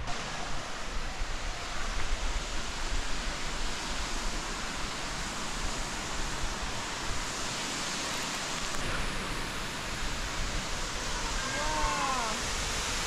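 Steady rushing roar of a waterfall heard from a lookout above the gorge. Near the end, a short call rises and falls once.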